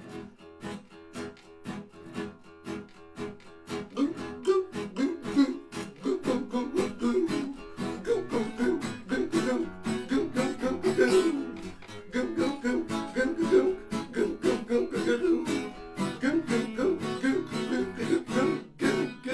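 Acoustic guitar strumming a steady rhythm; from about four seconds in, a person's voice imitating a seal's barking over it, with a short break about halfway through.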